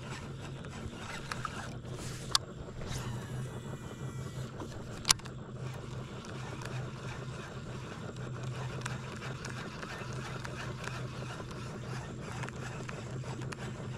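A boat motor running with a steady low hum. Two sharp clicks or knocks come through, about two seconds in and about five seconds in; the second is the loudest sound.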